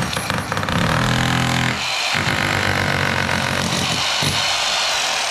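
Electric drill used as a chipping hammer to break up the floor, its motor running loud and steady with a hammering rattle, easing off briefly about two seconds in and again about four seconds in.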